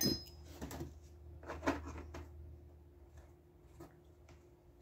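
Plastic motor-oil bottle being handled: a sharp knock as it is set down, then a few light clicks and knocks as its cap is fitted, with a faint steady low hum underneath.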